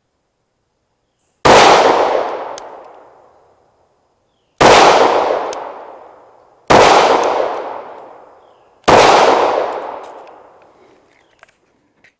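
Four shots from a Glock G45 9mm pistol, fired slowly two to three seconds apart, each ringing out and dying away over about two seconds.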